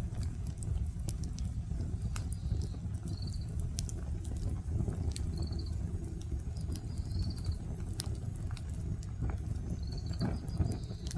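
Wood bonfire crackling, with scattered sharp pops over a low rumble. Short, high chirping trills come every couple of seconds.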